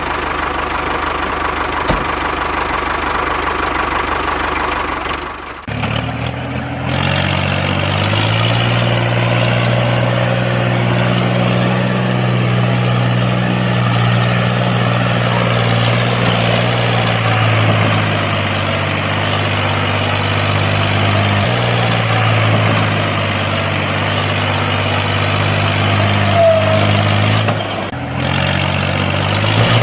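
Tractor engine idling steadily with a low, even tone. The sound shifts abruptly about six seconds in and twice more later on, like cuts between takes.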